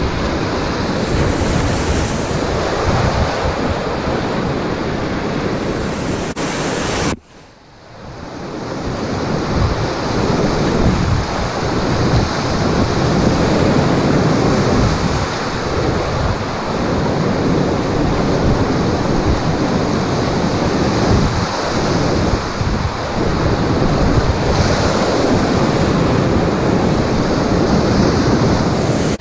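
Whitewater rapids rushing and splashing around a packraft, loud and steady, heard from right on the boat. About seven seconds in the sound cuts out suddenly, then swells back over about a second.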